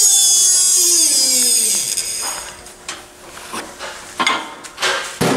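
Hydraulic shop press with a bottle jack being let down: a loud, high squeal falling steadily in pitch for about two seconds as the ram retracts off the freshly pressed pinion bearing. This is followed by a few sharp metal clicks and clanks, the loudest near the end.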